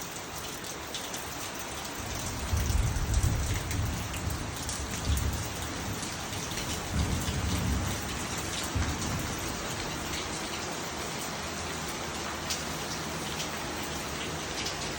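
Steady rain falling and pattering on surfaces, a constant hiss. Between about two and nine seconds in, a few low rumbles swell up beneath it.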